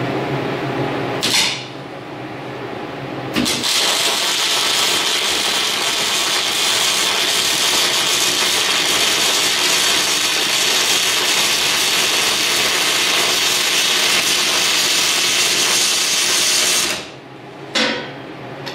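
Wire-feed (MIG) welder arc on steel: a brief arc strike about a second in, then a steady crackling hiss of a continuous weld bead for about thirteen seconds, ending with one more short blip near the end.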